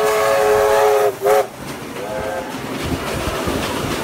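Steam whistle of NSW C36 class locomotive 3642 sounding one long blast that breaks off about a second in, followed by a short toot and a faint brief one. The rumble of the passing locomotive and carriages follows.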